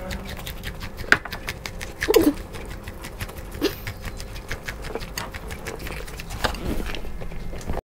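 Close-up biting and chewing into buttered corn on the cob, a dense run of short irregular crunching clicks as kernels are torn off the cob. A couple of brief murmured vocal sounds come through, about two seconds in and again a little later.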